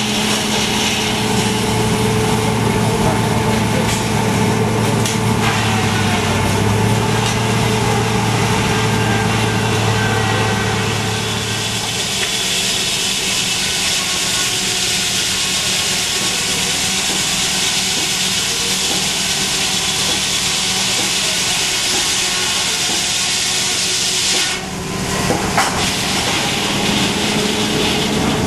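Huber return-flue steam engine running a sawmill: a steady hum at first, then a loud even hiss that takes over for about twelve seconds, breaks off briefly near the end, and gives way to the hum again.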